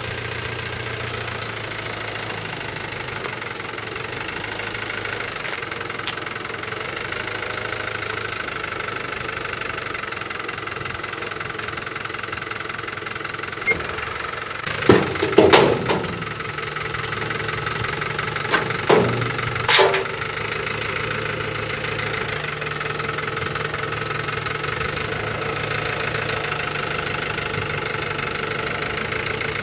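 Truck engine idling steadily, with a couple of louder, sudden sounds about halfway through.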